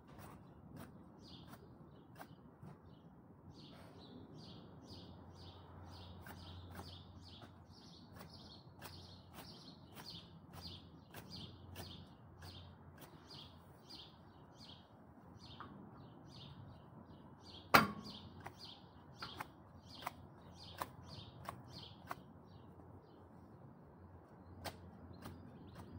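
A bird calling over and over in short high chirps, about two a second, with scattered sharp clicks from hand work on the lawn edge; one click a little past halfway is much louder than the rest.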